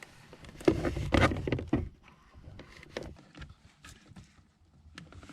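Handling noise from the door's plastic trim and wiring: a quick flurry of clicks, knocks and rustling about a second in, then a few faint scattered clicks.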